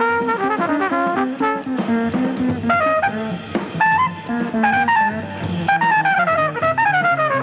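Jazz trumpet solo: fast runs of notes, many in quick descending lines, played over a bass line.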